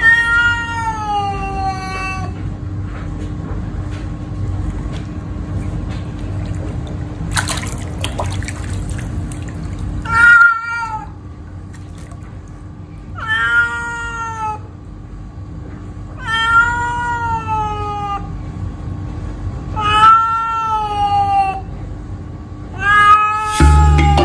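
Wet tabby cat in a bathtub meowing loudly in protest at being bathed: about six long, drawn-out meows, a few seconds apart.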